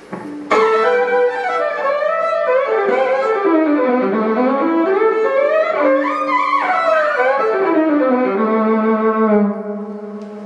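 Solo fiddle bowed unaccompanied: a short melodic passage that runs down and back up in pitch, then settles on a long low note that fades away near the end.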